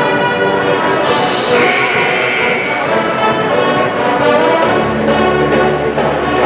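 Pep band with brass playing a loud, steady tune.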